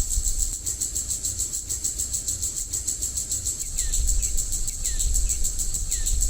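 Outdoor insect chorus: a steady, high-pitched, rapidly pulsing trill over a low rumble, with about five short falling chirps in the second half.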